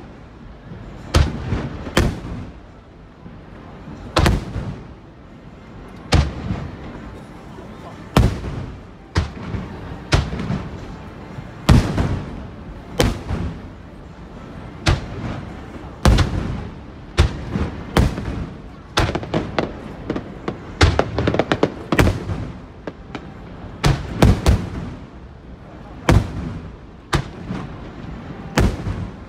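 Large aerial firework shells bursting one after another, irregularly at about one bang a second, each deep bang trailing off in a rumbling echo.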